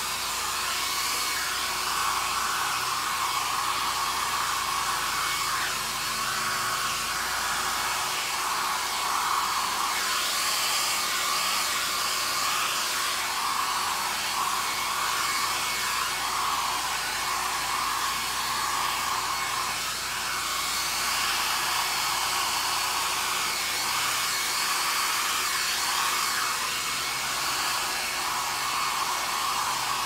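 Handheld hair dryer running steadily: a continuous rush of air with a mid-pitched whine, blowing across wet acrylic pouring paint to push it into a wave shape.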